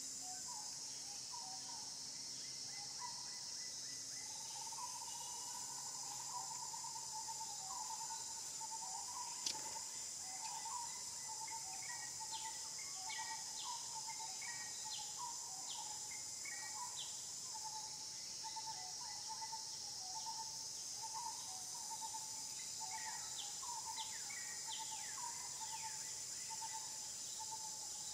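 Steady high-pitched insect drone, with a bird calling over it in a repeated warbling phrase and short falling chirps. A single sharp click comes about nine and a half seconds in.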